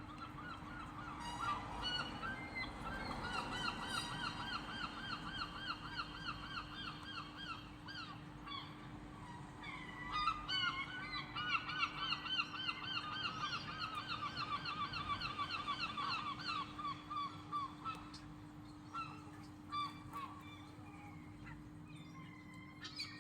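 Bird calling in two long runs of rapid, repeated, wavering notes, each run lasting several seconds, over a steady low hum.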